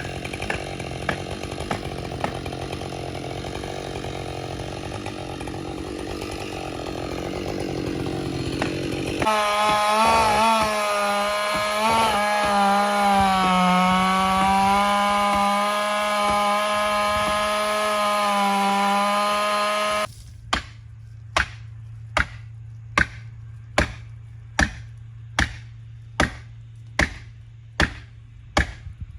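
Chainsaw running while ripping a large oak log into slabs, its pitch wavering as the load changes. The sound changes abruptly about nine seconds in and again about twenty seconds in. The last part is a low steady hum with sharp ticks a little over one per second.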